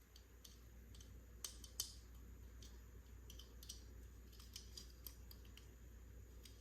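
Faint, scattered clicks and taps of small plastic toy pieces and packaging being handled, with two sharper clicks about a second and a half in.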